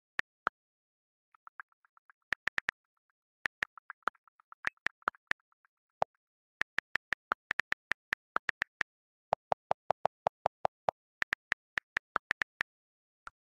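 iPhone on-screen keyboard key clicks as a message is typed: runs of quick, sharp taps broken by short pauses.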